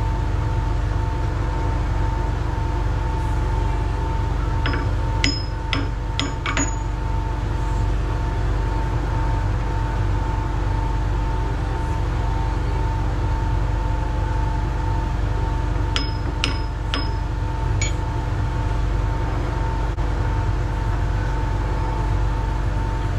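Steady machine hum with a constant tone. Over it come two quick runs of sharp, ringing metallic clinks, one about five seconds in and one about sixteen seconds in, from a chuck key working the jaws of a lathe's four-jaw chuck. The jaws are being adjusted to take the run-out out of a crown wheel.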